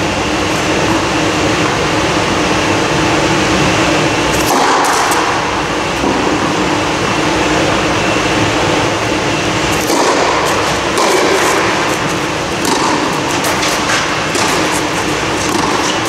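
Steady loud hum of the blower that keeps an air-supported tennis dome inflated, with faint steady tones in it. A few sharp knocks of tennis balls bouncing on clay and being struck by racquets, clustered about a third of the way in, around two-thirds in and near the end.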